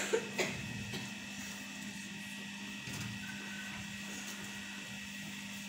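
Room tone in a quiet classroom: a steady electrical hum with faint scratching and rustling, and two short clicks just at the start.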